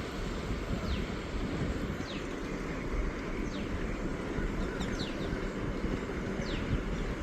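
Outdoor ambience of a low, steady rumble with small birds chirping, short high notes that fall in pitch about once a second.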